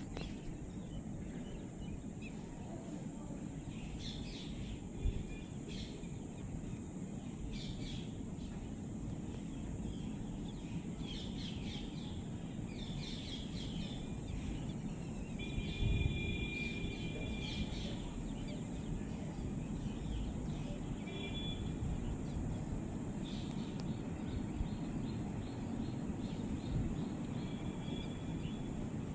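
Wind blowing and buffeting the microphone in a steady low rumble, with birds chirping on and off.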